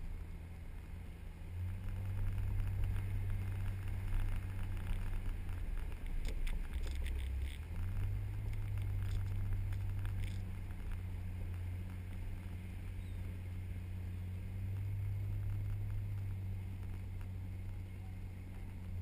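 A four-wheel-drive vehicle's engine running steadily as it drives on soft beach sand, a low drone whose note dips briefly about seven seconds in and then settles back. Scattered ticks and rattles come between about six and ten seconds in.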